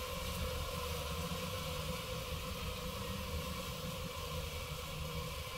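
Steady buzzing drone of a honey bee colony disturbed as its comb is cut out of a wall-cavity nest, over a low rumble.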